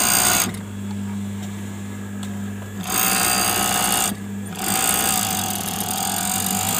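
Juki MO-6700 series four-thread overlock machine stitching knit fabric in short runs: one ending about half a second in, one of about a second around three seconds in, and a longer one from about four and a half seconds on. A steady low hum continues between the runs.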